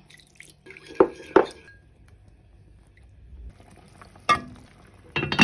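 Metal spoon clinking twice against a ceramic bowl as tomato paste is mixed with water, then a glass pot lid clinking against a pot, with a sharp ringing clink at about four seconds and another just before the end.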